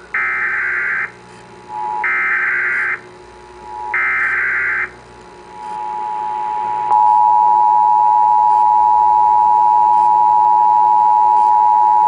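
Emergency Alert System test alert: three bursts of SAME header data tones, about a second each and two seconds apart. Then comes the EAS attention signal, a steady two-tone alarm (853 and 960 Hz), which reaches full loudness about seven seconds in and holds.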